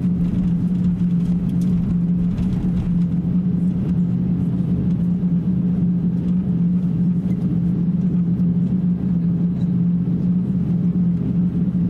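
Steady cabin drone inside an Airbus A350-900 taxiing on its Rolls-Royce Trent XWB engines, with a constant low hum under it.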